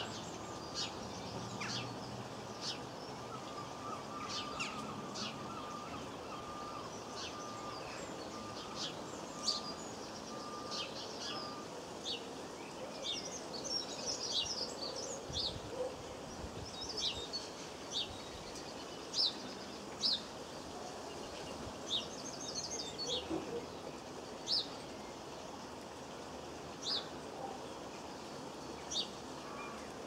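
Small garden birds calling: short, sharp, high chirps repeated every second or two, with a few brief bursts of twittering.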